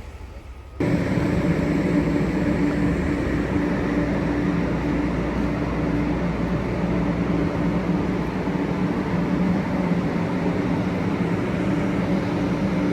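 Shinkansen high-speed train running, a steady rumble with a constant low hum, cutting in abruptly about a second in.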